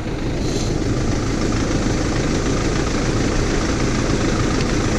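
Mercedes Sprinter 310 diesel engine idling steadily with a hydrogen carbon-cleaning machine hooked up to it.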